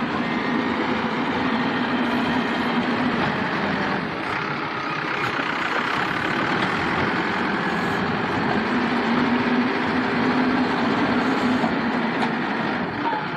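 Heavy diesel machinery engine running steadily, its hum strengthening twice, from about a second in and again past the middle, as the engine takes load.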